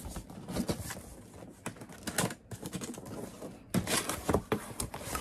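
Large cardboard box being opened by hand: irregular scraping, rustling and light clicks of the cardboard flaps and lid, louder about two seconds in and again near four seconds.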